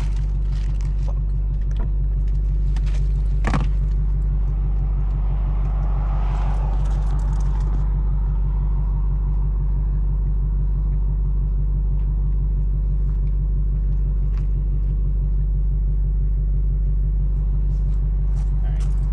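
2024 Ford Mustang GT's 5.0-litre V8 idling steadily through newly installed Kooks headers, its exhaust in normal mode. A single sharp click about three and a half seconds in.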